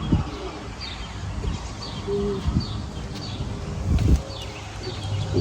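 A bird calling with short, high, downward-sliding chirps repeated every half second or so, over low rumble and a few dull knocks, the loudest about four seconds in.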